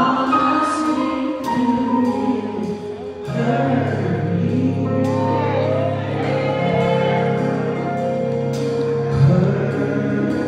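Live gospel music: a woman sings drawn-out, sliding phrases over a keyboard holding sustained bass notes and chords, with a new chord struck about once a second. The hall is echoey.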